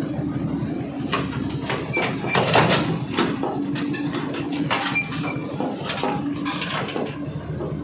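Hydraulic excavator with its diesel engine running steadily, while its steel tracks and undercarriage clank and squeal in short bursts as it climbs onto the truck bed.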